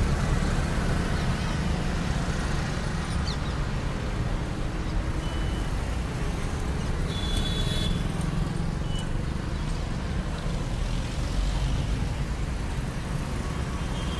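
Steady city road traffic passing close by: the engines and tyres of cars, an auto-rickshaw, scooters and motorcycles make a constant low rumble. A brief high-pitched chirp comes about seven seconds in.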